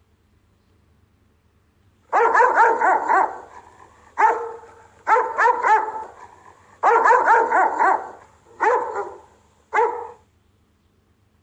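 Rottweiler giving guard barks in six quick volleys of several barks each, starting about two seconds in; the last two volleys are short.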